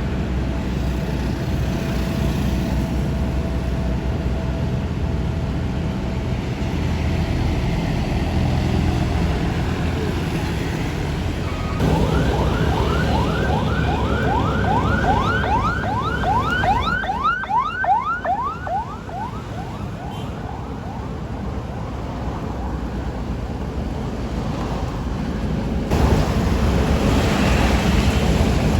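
Diesel engines of road-paving machinery running steadily. Partway through, a siren-like tone sweeps rapidly up in pitch over and over, about four times a second, for several seconds before stopping.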